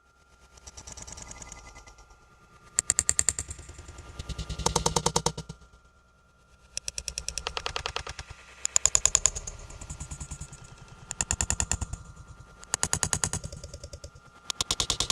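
Eerie clattering: about seven bursts, each a second or so of rapid, sharp knocks like a loose shutter rattling, some louder than others. A faint steady high tone hangs underneath.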